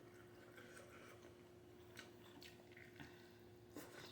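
Near silence: room tone with a few faint, wet mouth clicks from chewing.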